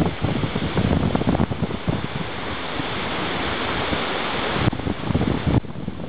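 Wind buffeting the microphone in gusty, irregular rumbles over a steady hiss of wind and surf. The steady hiss drops away abruptly near the end.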